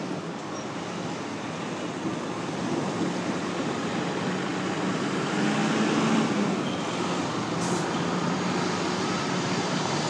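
Thermo King transport refrigeration unit running: a steady mechanical drone with a faint low hum.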